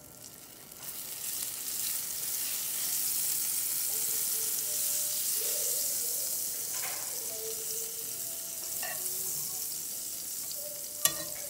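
Vegan butter sizzling as it melts in a hot nonstick frying pan. The sizzle builds over the first second or two and then holds steady, with a couple of sharp clicks near the end.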